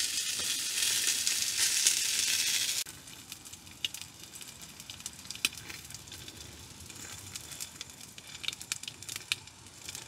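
Sausages sizzling in a frying pan over a wood fire, a dense steady hiss that cuts off abruptly about three seconds in. After that comes a much quieter stretch with scattered small pops and crackles.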